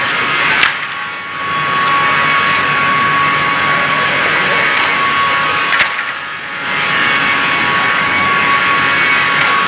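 A multi-blade rip saw running and cutting wooden boards: a loud, steady sawing noise with a high steady whine. Twice it goes briefly quieter for about a second, each time just after a sharp knock.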